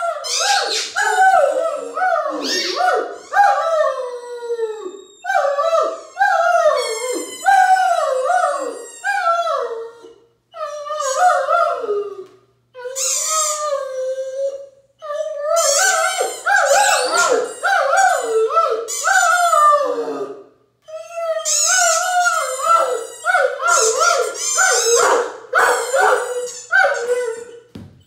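Great Dane howling over and over in short, falling howls, in runs broken by a few brief pauses, together with the squeaks of the toy ball he is pawing.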